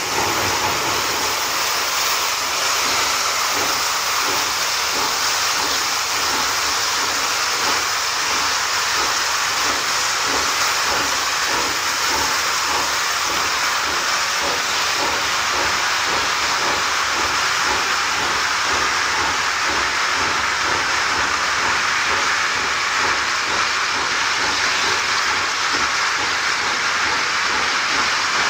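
Wood-fired Finnish Hv3 steam locomotive under way, with a steady loud hiss of steam over a fast, even beat of exhaust and running gear.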